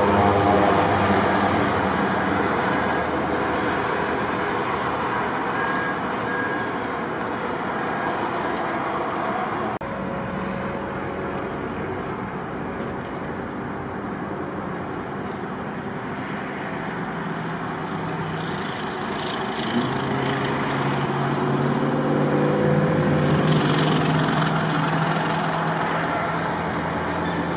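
Steady highway traffic noise with the drone of a heavy truck engine, which comes up louder about twenty seconds in and holds.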